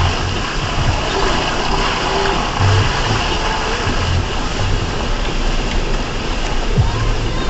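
2004 Ford Ranger's 4.0-litre V6 running as the truck drives an off-road trail, with uneven low pulses from the engine under a steady rushing noise.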